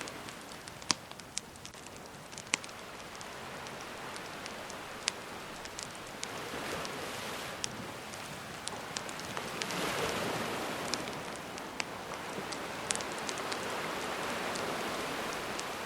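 Wood fire crackling with scattered sharp pops over the hiss of gentle sea waves washing in, the surf swelling about ten seconds in.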